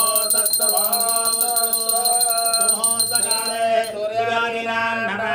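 A man singing a devotional melody, with a small bell rung rapidly and continuously through the first part. The bell stops a little over halfway through.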